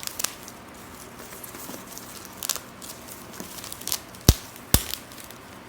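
Packaging being handled: faint crinkling and rustling of cut plastic wrap, with two sharp clicks about half a second apart a little after four seconds in.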